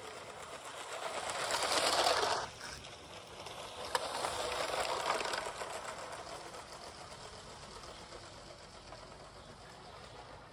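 Lego high-speed passenger train's battery motor and wheels whirring and rattling along plastic track. It builds to a peak about two seconds in and cuts off, swells again around four seconds, then fades.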